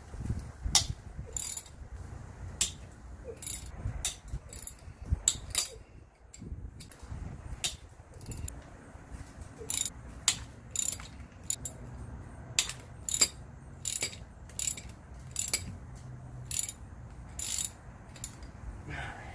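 Hand ratchet wrench clicking in short runs with pauses between them, as the bolts holding the two halves of a GM 8.25 front differential case are backed out.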